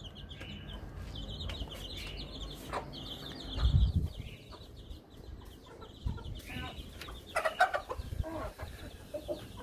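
Young chicks peeping in rapid high chirps, with chickens clucking in lower calls later on. A brief low bump a little before four seconds in is the loudest moment.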